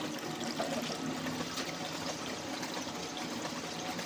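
Water from a small artificial rock waterfall trickling and splashing steadily into its fish pool.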